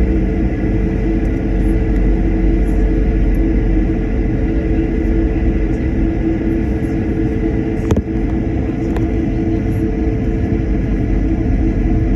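Airliner cabin noise: a steady, loud rumble of jet engines and airflow with a constant hum, and one brief click about eight seconds in.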